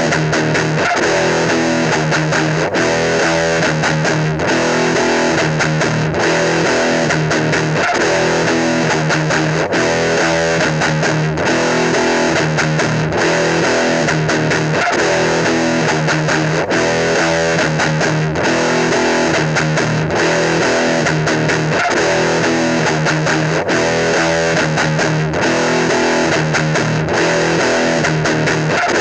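Rock music with distorted electric guitar and drums, playing steadily at a constant level.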